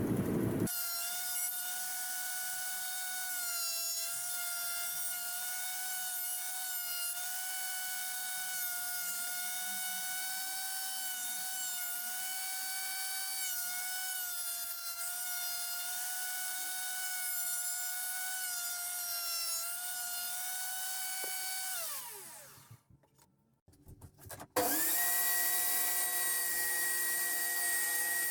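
Handheld electric power tool running on wood with a steady, high motor whine that wavers slightly as it cuts. About 22 seconds in it is switched off and winds down in falling pitch. After a short pause a power tool starts up again at once with a higher whine.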